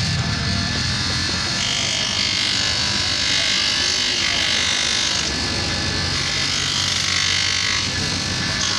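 Bench grinder motor running with a sanding wheel, a shoe sole pressed against the spinning wheel, giving a steady hum under a harsh abrasive hiss that strengthens and eases a few times as the shoe is pressed and moved.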